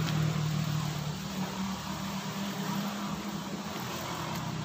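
A motor engine running steadily, a low hum that fades for a while in the middle and comes back near the end, over a faint outdoor hiss.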